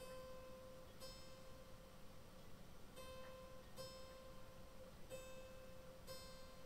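The newly fitted highest string of a Harpejji K24, sounded about six times. Each time it gives a faint single note that rings on between strikes, at a steady pitch, as it is checked near its tuning.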